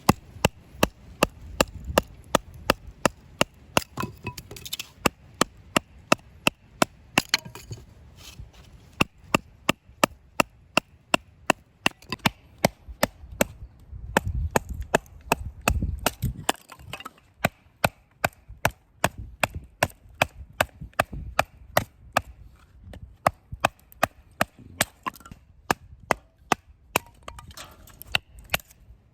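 Firewood being split into kindling by repeated sharp strikes on wood, about two knocks a second, with a short pause about halfway through.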